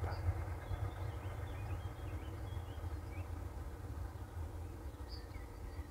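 Faint birdsong, short chirps scattered through the first half and one more near the end, over a steady low rumble.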